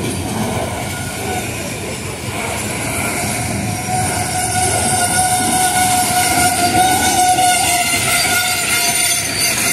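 Hopper cars of a heavy freight train rolling past close by, the wheels rumbling and clattering on the rails, with a steady high tone from about three seconds in that fades out near the end.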